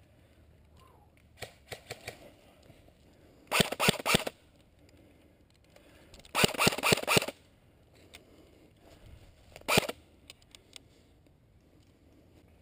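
Airsoft rifle firing three rapid full-auto bursts: a short one about three and a half seconds in, a longer one of about a second near the middle, and a brief one near the end, with a few faint clicks before the first.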